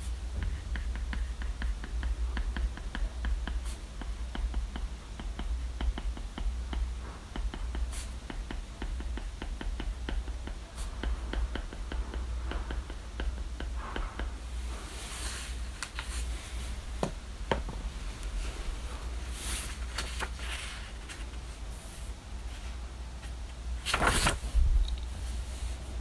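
Apple Pencil tip tapping and sliding on an iPad's glass screen, a quick run of small ticks through the first half. Softer rustles follow, with a louder rustle near the end, over a steady low hum.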